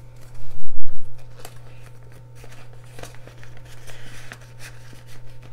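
Paper banknotes rustling and crinkling as they are counted and slid into a plastic binder pocket, in many small crisp clicks. A heavy low bump about half a second in is the loudest sound.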